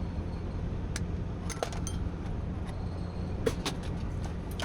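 Scattered light metallic clinks and clicks from scrap being handled, over a steady low hum.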